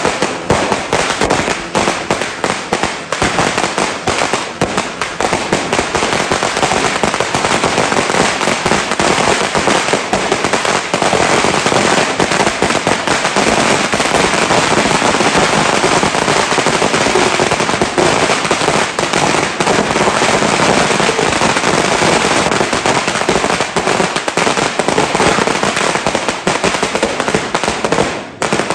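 Dense, continuous crackling and popping of many firecrackers and fireworks going off at once, the bangs packed so close there is barely a gap; a short lull comes near the end.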